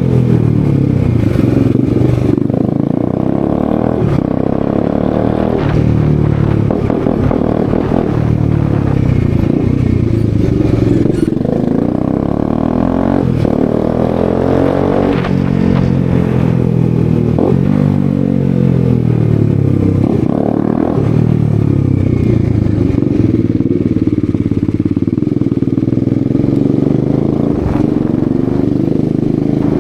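Bajaj Dominar 250's single-cylinder engine, run with the exhaust end can removed, pulling under way on the move: its pitch climbs and falls again and again as the bike accelerates, shifts and eases off.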